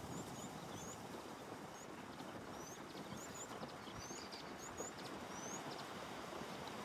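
Small birds chirping: many short, high, upward-sweeping chirps, several a second, over a steady outdoor background hiss.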